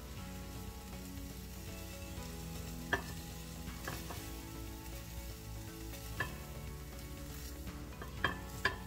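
Shrimp sizzling in a frying pan while being stirred, with a few sharp knocks of a utensil against the pan, about three seconds in, about six seconds in and twice near the end. Soft background music under it.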